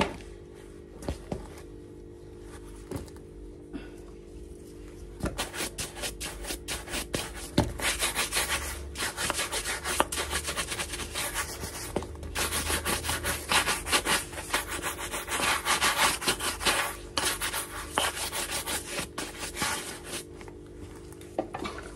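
Shoe brush scrubbed quickly back and forth over freshly polished black leather boots, in rapid strokes that start about five seconds in and run until near the end.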